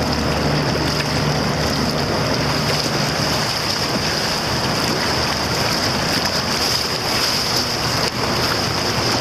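Rushing whitewater of a river rapid, heard from a boat running through it, with splashing paddle strokes.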